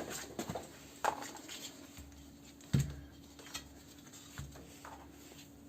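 Light clicks and taps of small motor parts, the carbon brushes and their holders, being handled, with one louder knock about three seconds in, over a faint steady hum.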